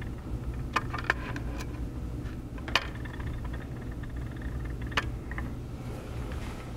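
Steady low hum of bench equipment, with four or five small sharp clicks as metal tweezers handle a tablet's charging port on its circuit board.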